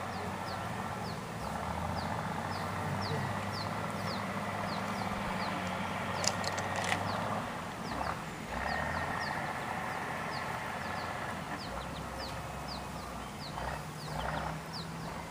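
A bird repeating a short, high, falling chirp about twice a second over a steady low hum.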